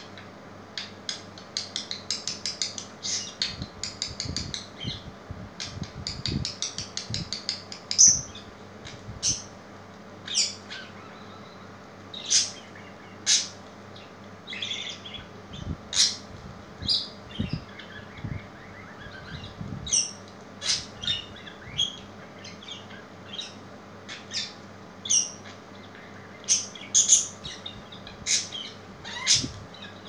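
Budgerigar chattering in a fast run of short, high chirps, then giving single sharp chirps spaced about a second apart.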